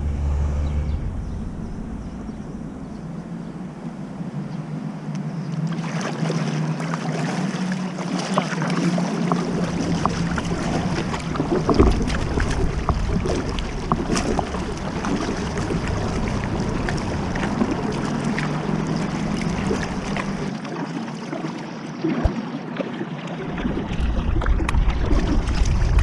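Water splashing and lapping against a kayak's hull, with many small irregular splashes, and wind noise on the microphone.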